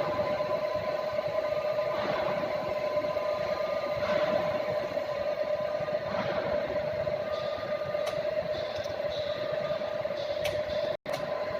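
Tool room milling machine running with a steady whine and a few light clicks; the sound drops out for an instant near the end.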